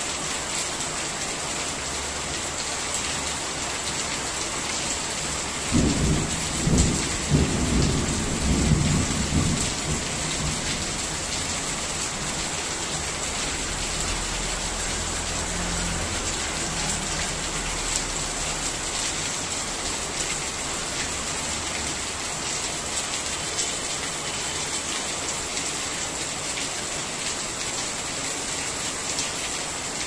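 Steady rain with an even hiss. About six seconds in a roll of thunder rumbles for a few seconds, and a fainter low rumble follows a little later.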